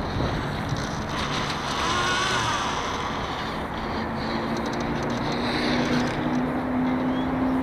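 Water rushing along a radio-controlled model yacht's hull and wind on the onboard camera's microphone, a steady hiss; a low steady hum joins about four seconds in.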